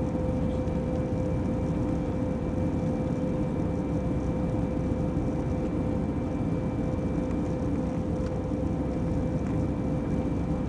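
Airbus A319 cabin noise during the climb after takeoff: a steady low rumble of the engines and airflow, with a steady hum running through it.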